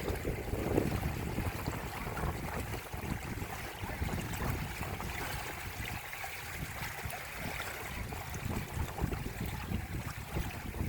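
Water rushing and splashing along the hulls of a Windrider 17 trimaran under sail, with wind rumbling on the microphone.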